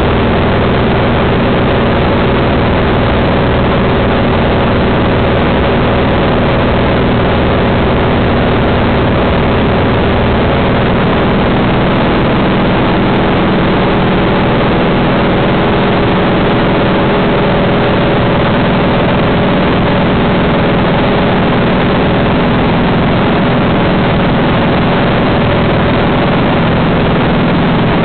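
Cessna light aircraft's piston engine and propeller droning steadily in flight, heard inside the cabin: a loud, even drone with a hum of steady engine tones.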